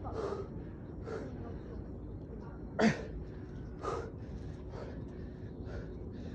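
A man breathing hard after a long push-up set, short sharp gasping breaths about once a second, the loudest about three seconds in.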